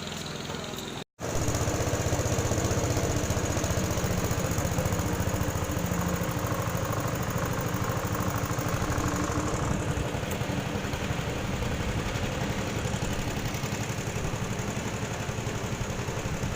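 A vehicle engine running steadily with a fast, even pulsing. It breaks off for a moment about a second in, at an edit cut, then carries on.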